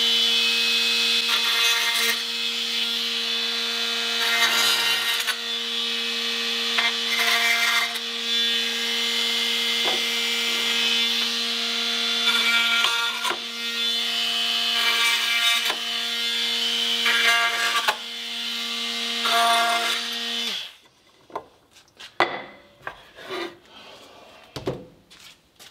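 Milwaukee cordless oscillating multi-tool running steadily with a constant hum, its blade cutting through the wooden tabs of a walnut board in repeated short passes. The tool stops about 20 seconds in, and a few light knocks follow as the wood is handled.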